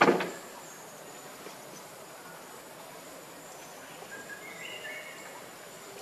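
Outdoor natural ambience: a steady high insect drone, with a few faint bird chirps about four to five seconds in. A loud, brief thump opens the sound and dies away within half a second.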